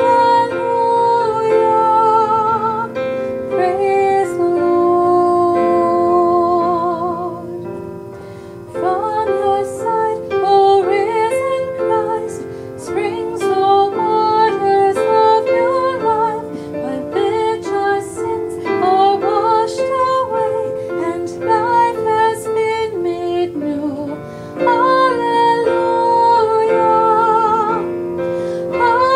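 A hymn sung by a woman with vibrato over plucked-string accompaniment, with a busier stretch of plucked notes in the middle.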